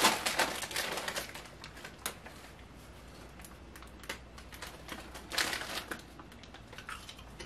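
Foil snack bag crinkling as hands reach in, with crunching of snack chips being eaten. Scattered crackles, louder at the start and again about five and a half seconds in.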